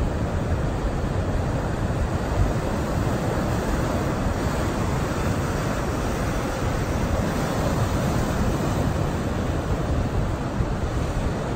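Surf from a rough sea breaking on the shore, a steady rushing wash of waves, with wind rumbling on the microphone.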